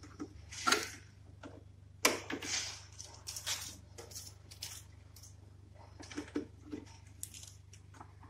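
Irregular plastic clicks, taps and rattles as the swing louver flap is handled and snapped into place on a Gree split air-conditioner indoor unit, the sharpest click about two seconds in.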